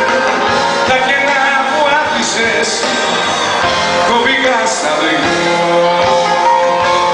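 Live band playing a Greek popular song over the club's amplification, with some singing.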